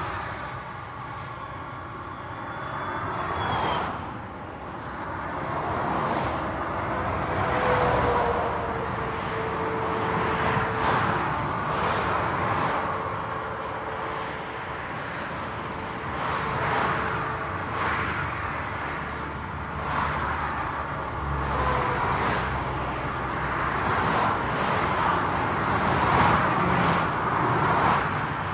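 Highway traffic: a continuous wash of tyre and engine noise, swelling and fading as vehicles pass one after another every few seconds. Through the middle there is a faint steady whine from one passing vehicle.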